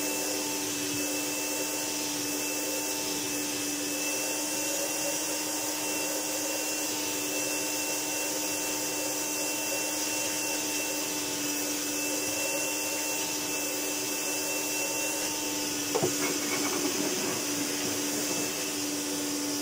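Hoover Enigma Evo PU31 bagged upright vacuum cleaner running steadily, a constant whine over a hiss, while its hose nozzle sucks at a filter. There are a few plastic knocks about 16 seconds in. The owner finds the machine has almost no suction or airflow, with air leaking past an unsealed motor cover.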